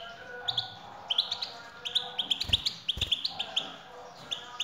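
European goldfinch song: groups of fast, high twittering chirps. Two soft low thumps come about halfway through.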